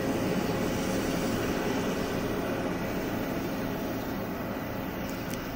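A steady, distant mechanical drone with a faint low hum, slowly easing off. No swan calls can be heard.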